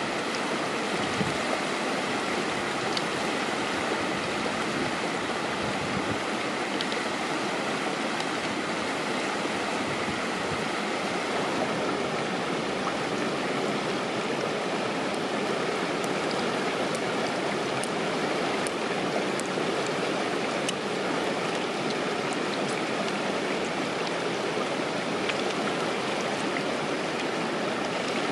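Shallow stream running over small rapids: a steady rush of water.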